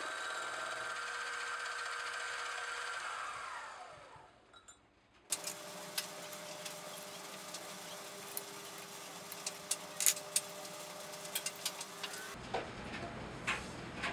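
Mini lathe spinning a hole saw through a thin-wall mild steel tube, its motor then winding down with a falling whine and stopping about four seconds in. After a short quiet spell come light metallic clicks and taps as a hex key works on the tube fixture on the tool post.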